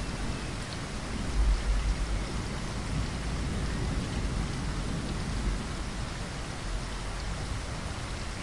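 Steady rain with raindrops pattering against a window glass, with low rumbles swelling underneath, the strongest about a second and a half in.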